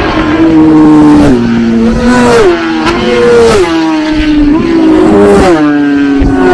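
Racing motorcycles at full throttle, their engines running at high revs. The pitch climbs and then drops sharply about once a second as the riders shift up through the gears.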